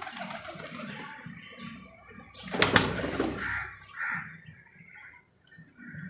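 Birds calling, with short calls a little past the middle, and a loud sudden burst of noise about two and a half seconds in.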